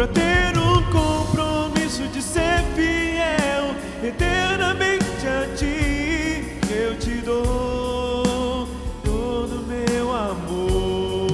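Gospel worship song played by a band with a drum kit keeping a steady beat under sustained chords, with a sung melody over the top.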